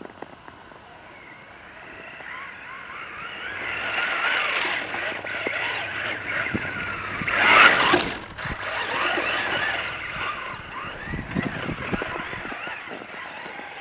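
Brushless electric motor and drivetrain of a 1/10-scale RC truck (Traxxas Ford F-150 Raptor with VXL brushless system) whining as it drives past. The whine builds to its loudest about halfway through, as the truck passes close, then wavers up and down in pitch with the throttle as it runs off and fades.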